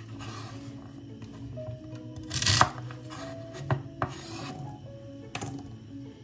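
Kitchen knife cutting through a bundle of celery stalks on a wooden cutting board. One loud rasping cut comes about two and a half seconds in and ends in a knock of the blade on the board, followed by a few single sharp knocks.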